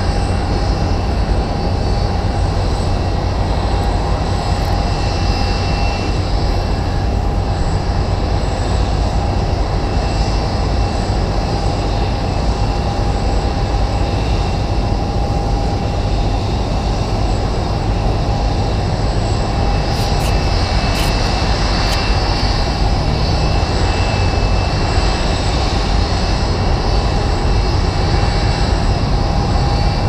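Jet airliner engines running, a steady low rumble with a thin high whine held over it.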